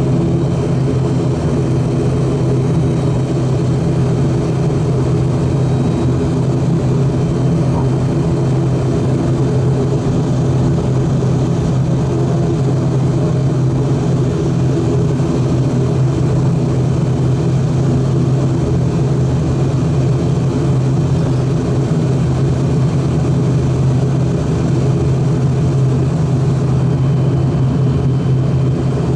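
The twin turboprop engines and propellers of an ATR 42-600 make a steady, deep drone, heard inside the cabin while the airliner is on the ground before takeoff.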